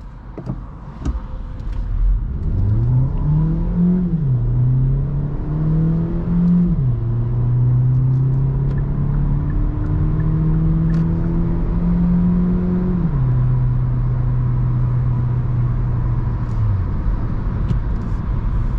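2022 Hyundai Ioniq plug-in hybrid's 1.6-litre four-cylinder petrol engine under hard acceleration, heard from inside the cabin. The engine note rises in pitch through each gear, and the six-speed dual-clutch gearbox upshifts about four, seven and thirteen seconds in, each shift dropping the pitch. The engine note falls away near the end over steady road and tyre rumble.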